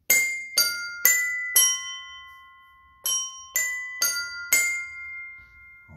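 Coloured tuned desk bells struck one after another, four notes about half a second apart, each ringing on. After a short pause the same four notes are played again.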